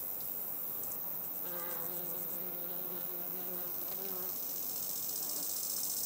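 A flying insect buzzing: a steady, slightly wavering hum that sets in about one and a half seconds in and dies away after about three seconds, over faint high insect chirping.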